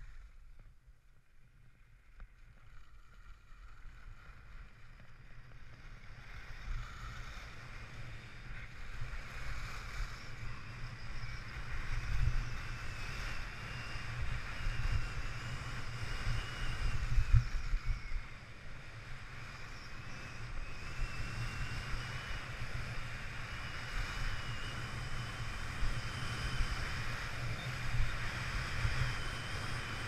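Skis running down a groomed slope: a steady hiss and scrape of the skis on hard snow, with wind rumbling on the microphone. It starts quiet and grows louder over the first ten seconds or so, then stays at that level with a few brief peaks.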